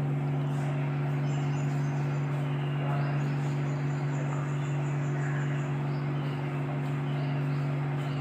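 A steady low mechanical hum with a noisy wash behind it, while small birds chirp repeatedly in the background.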